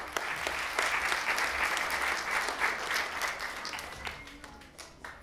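Audience applauding, swelling quickly at the start and dying away over the last second or two.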